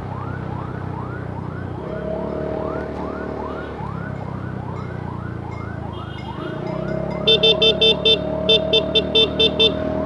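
Ambulance siren in a fast yelp, rising sweeps about three a second, over the low hum of motorcycle engine and traffic. Near the end a horn gives about ten short, rapid toots, the loudest sound.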